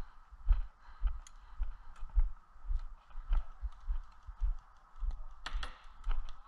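Footsteps on dry grass and dirt, about two a second, each step a dull thud on the body-worn camera with gear rustling. A louder rustle comes a little after the middle.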